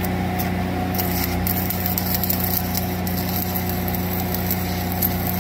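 Stick-welding arc of a 1/8-inch 7018 electrode crackling and sizzling, starting about half a second in, on an overhead weld. Under it, the diesel engine of a Lincoln Ranger 305D engine-driven welder runs steadily at welding speed.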